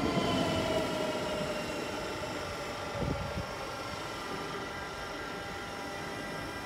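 Bombardier TRAXX electric locomotive settling at a standstill after braking into the platform: a whine falls in pitch over the first three seconds, then a steady electrical whine at several pitches holds. A single low thump sounds about three seconds in.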